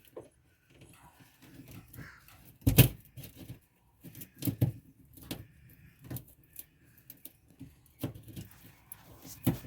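Scattered knocks, clicks and rustles of hands handling tools and wiring at close range, with a sharp knock about three seconds in and another near the end.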